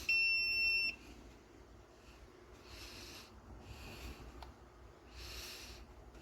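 Digital multimeter's beep, one steady high tone just under a second long right at the start, the meter's signal of near-zero resistance across the probes while transistor junctions are tested. Then two soft breaths and a faint click.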